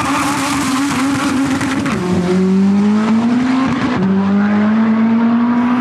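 Two drag-racing cars launching off the start line at full throttle, their engines revving hard up through the gears. The pitch climbs steadily and drops back with an upshift about two seconds in and again about four seconds in.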